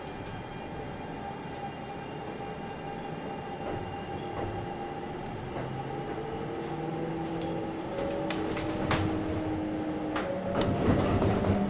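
Kintetsu 1031-series electric train heard from inside the car while accelerating: the traction motors whine in several tones that rise slowly in pitch, over wheel-on-rail rumble that grows louder, with a few sharp rail clicks in the second half.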